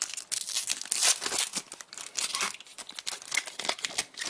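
Crinkling and rustling of a trading-card pack wrapper and cards being handled, in irregular bursts that are loudest in the first half.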